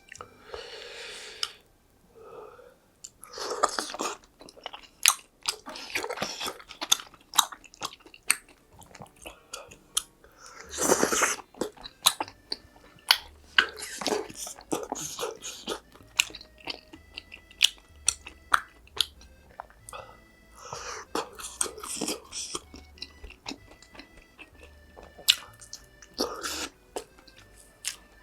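Close-miked eating: a person biting and chewing food, with sharp crunchy clicks coming in uneven bursts.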